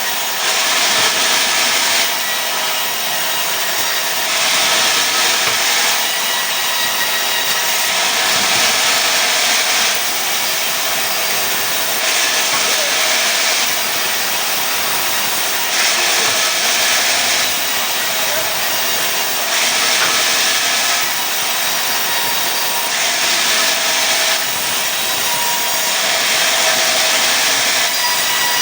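Sawmill saw cutting pine boards: a continuous loud cutting noise that swells and eases every three to four seconds.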